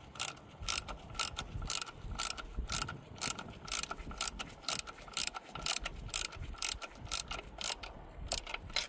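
Hand socket ratchet clicking steadily, several clicks a second, as it is swung back and forth to run down the water pump mounting bolts.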